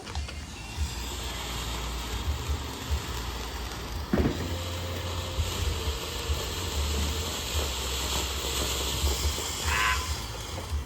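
A lit ground firework burning with a steady hiss of sparks, with one sharp pop about four seconds in. Wind buffets the microphone throughout.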